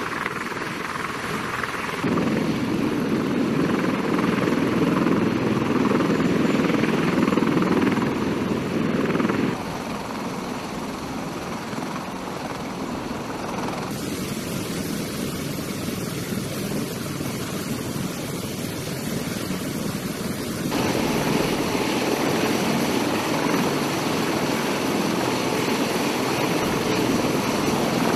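CH-53E Super Stallion heavy-lift helicopter running on the ground, a steady rotor and turbine noise whose loudness and tone shift abruptly a few times.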